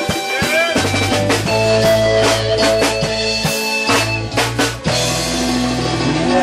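Live reggae band: an electric guitar plays a lead line with bent notes over bass guitar and drums.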